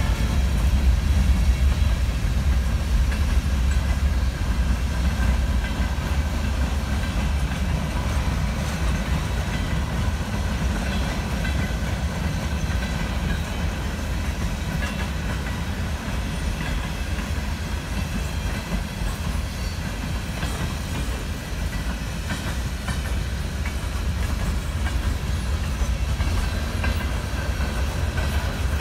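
CN freight cars (grain hoppers and boxcars) rolling steadily past at close range: a continuous deep rumble of steel wheels on the rails, with faint clicks as the wheels cross rail joints.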